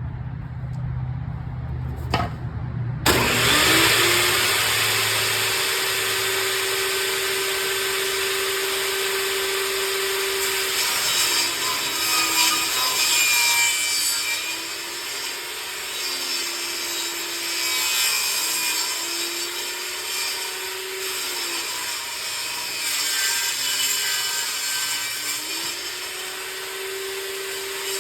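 Table saw starting up with a click about three seconds in, then running loud and ripping old wooden boards lengthwise. Its whine drops in pitch several times as the blade takes the load of the cut, and rises again as the load comes off.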